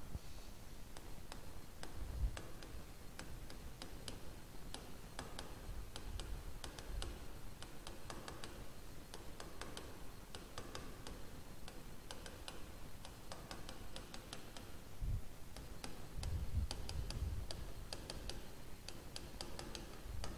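Pen tapping on an interactive whiteboard surface during handwriting: a string of quick, irregular ticks, with a few dull low thumps.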